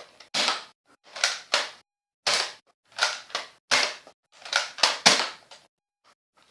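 Nerf Strong-Arm dart blaster being slide-primed and fired over and over as its six-dart rotating cylinder empties. It makes a quick run of sharp clacks and puffs, often in pairs, about one to two a second.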